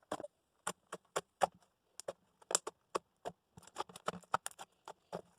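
Slime being mixed as activator works into it: irregular sticky clicks, several a second.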